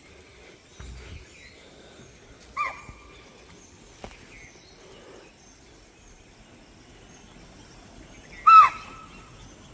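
Two short, shrill alarm calls of chital (spotted deer), one about two and a half seconds in and a louder one near the end. They are the herd's warning calls, a sign the deer have sensed a possible predator.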